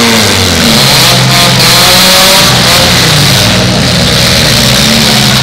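Demolition derby cars' engines revving loudly, several at once, their pitches rising and falling over each other.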